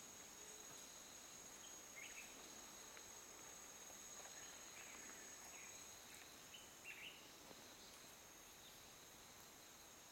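Faint forest ambience: a steady high-pitched insect drone, with a few short chirps scattered through it, the loudest about two seconds in and about seven seconds in.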